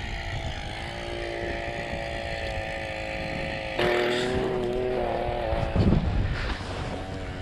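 Snowmobile engine running steadily at idle. About four seconds in it becomes louder and its pitch shifts slightly, and there is a brief low thump near six seconds.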